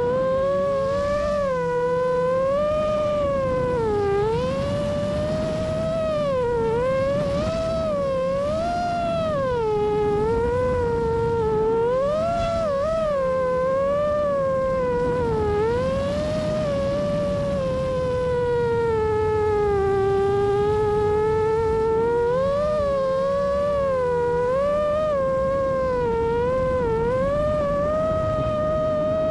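FPV quadcopter's motors whining, the pitch rising and falling continuously with the throttle as it swoops and turns.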